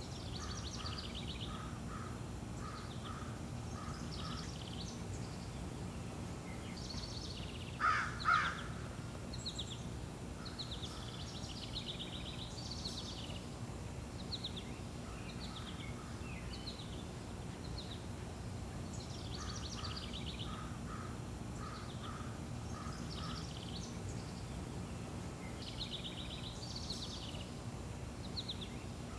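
Several small birds singing and chirping over a steady low background noise, with short runs of quick repeated notes and two louder calls about eight seconds in.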